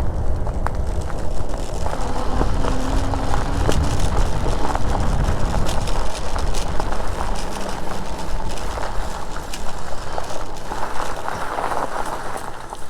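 E-bike riding along, with wind rumbling on the microphone, tyre and road noise, and scattered clicks and rattles. It eases off near the end.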